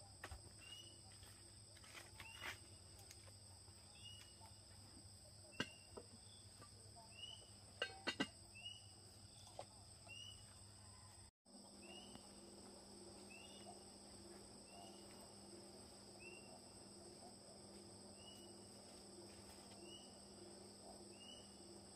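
Faint outdoor insect chorus: a steady high drone with a short rising chirp repeated about once every second or so. A few sharp clicks stand out about six and eight seconds in, and the sound drops out for a moment near the middle.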